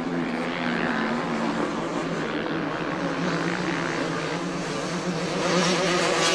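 Motocross bike engines revving up and down as the riders race through the corners, getting louder about five and a half seconds in.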